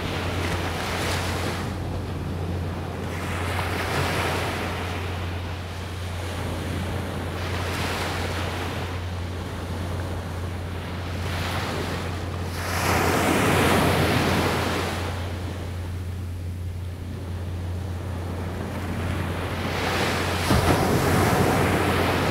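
Small surf breaking and washing up the beach, a new wave swelling in every few seconds; the biggest breaks come just past the middle and near the end. Under it is a steady low rumble of wind on the microphone.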